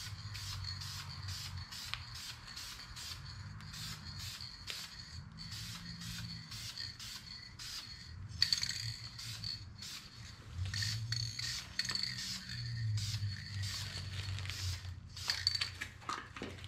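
Aerosol spray can spraying clear coat in short hissing passes, over background music with a quick, steady ticking beat.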